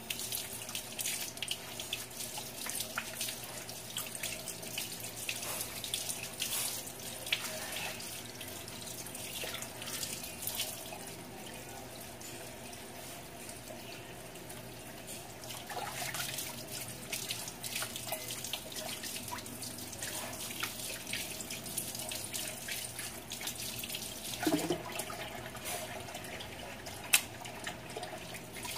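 Tap water running and splashing in a sink as a slab of raw pork belly is rinsed and turned by hand, with a sharp knock near the end.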